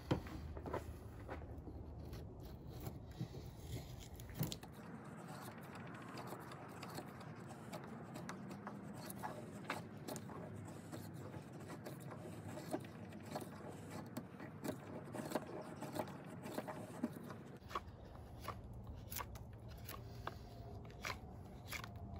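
Knife blade shaving curls off a softwood stick: repeated short scraping strokes along the wood, unevenly spaced, with small clicks as the shavings come away.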